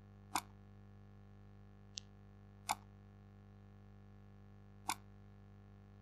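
Computer mouse button clicking four times, short sharp clicks a second or two apart, one of them fainter, over a faint steady hum.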